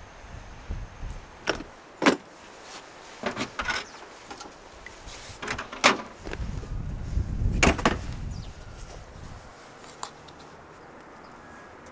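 Latch and door of an old refrigerator being opened and shut: sharp clicks and knocks, the loudest about six and eight seconds in, with low rumbling handling between them.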